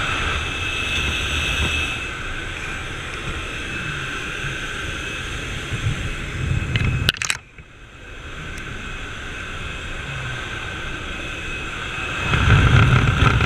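Steady noise of a propeller plane's engine and the airflow through its open jump door, heard from inside the cabin. The noise drops suddenly for about a second a little after seven seconds in, then comes back, and grows louder with a low rush near the end.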